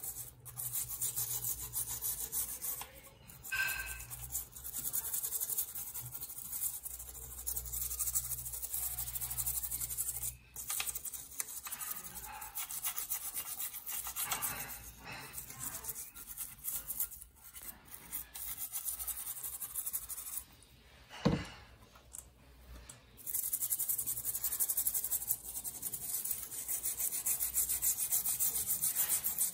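Toothbrush bristles scrubbing a graphics card's circuit board in soapy water: a rapid, continuous, scratchy scrubbing. It eases off briefly about three quarters of the way through, where a single sharp knock is the loudest sound.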